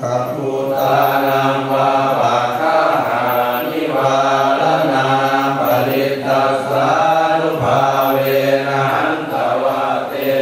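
Thai Buddhist prayer chanting: voices reciting on a low, nearly unchanging pitch in long phrases, with short pauses between them.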